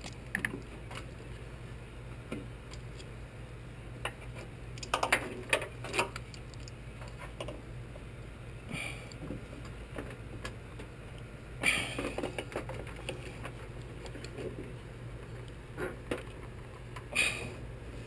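Scattered plastic clicks, taps and rattles of a headlight bulb and its socket being worked out of and into the headlight housing, coming in small clusters, over a steady low hum.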